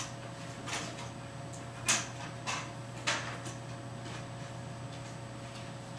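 A few short scrapes and taps from a pen on an interactive whiteboard as a line is drawn, five in the first three seconds, the loudest about two seconds in. A steady low hum runs underneath.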